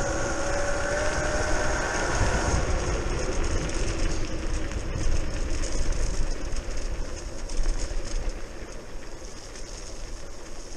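Ride noise from a modified Razor E300 electric scooter: steady wind rumble on the microphone and tyre noise on a rough path, with the brushless outrunner motor's whine, rising slightly, heard for the first two and a half seconds. The noise gets quieter over the last few seconds.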